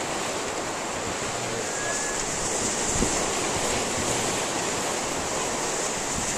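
Steady rush of ocean surf mixed with wind on the microphone, with one faint, short gull call about two seconds in.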